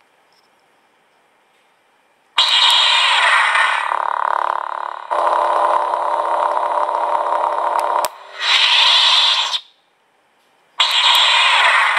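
Lightsaber sound effects from a DIY sound-effect chip through a small speaker: a sudden loud ignition about two and a half seconds in, then a steady buzzing hum with a brighter, higher burst near the ninth second. The sound cuts off for about a second, then ignites again near the end.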